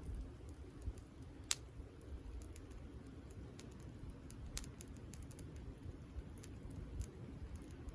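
Wood fire crackling: a low steady rumble with scattered sharp pops and ticks, the loudest about a second and a half in, others near the middle and near the end.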